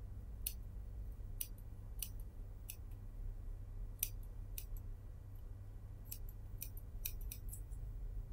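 Large tailor's shears snipping through synthetic batting and seam allowance, about a dozen short sharp snips at an uneven pace, some closer together near the end, to trim the excess batting from a sleeve seam.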